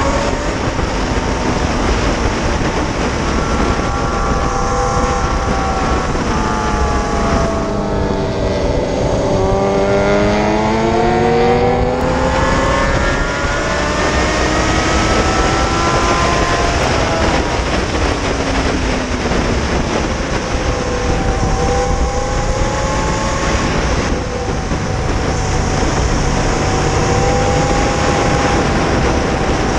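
Homemade electric motor of a converted Yamaha R1 racing motorcycle at track speed: a whine that slides down and back up in pitch as the bike slows and accelerates through corners, over heavy wind rush.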